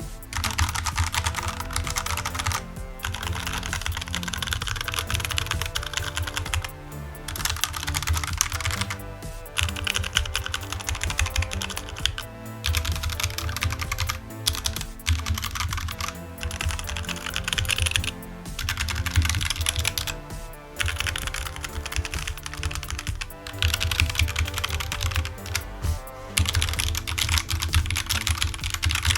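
Mechanical keyboard being typed on fast, in runs of a few seconds with short pauses between them, with music underneath.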